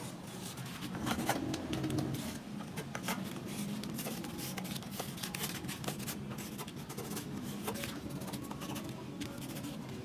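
Pencil scratching along a wooden plank as it traces the edge of a cardboard template, with light rubbing of the cardboard and small ticks.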